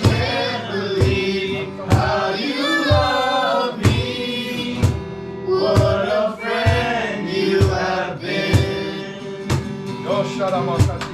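Live worship music: voices singing a slow song over instruments, with a steady beat about once a second.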